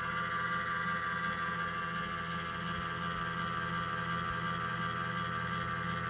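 PC cooling fan running with a steady high-pitched whine over its hum: the noise of a fan's sleeve bearing that needs lubricating.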